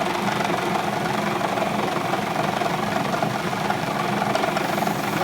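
Sungjin Machinery sorting machine running steadily: a constant motor hum with a fast, fine rattle of the machine vibrating.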